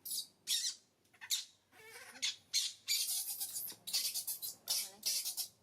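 Baby monkey giving a run of short, breathy squeaks, about two a second.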